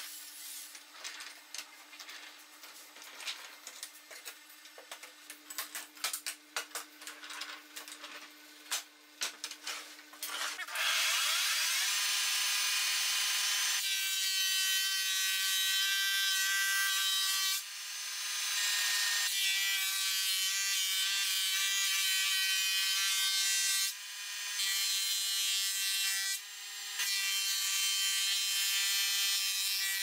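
A run of small knocks and clicks, then, about eleven seconds in, a combination jointer-thickness planer starts cutting loudly. Boards are fed through as it shaves them, with a steady whine from the cutterhead and short dips between passes.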